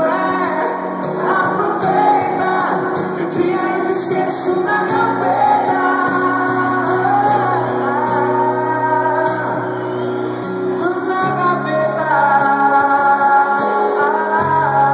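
Live sertanejo band music heard through the venue's PA: a male singer sings a slow romantic melody over acoustic guitar, bass and band, with long held notes.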